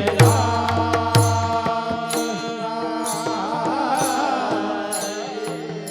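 Marathi kirtan music: steady held instrumental tones under a wavering sung melodic line in the middle. Two deep drum strokes fall about a second apart near the start, with sharp cymbal clicks throughout.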